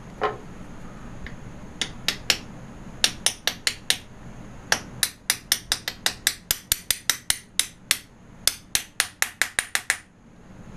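A small hammer tapping a new oil sight glass into its bore in a Monarch Model K lathe's cast casing, seating the press-fit glass. Dozens of light, sharp taps come in quick runs of about four or five a second, with short pauses between the runs, after one brief ringing clink at the start.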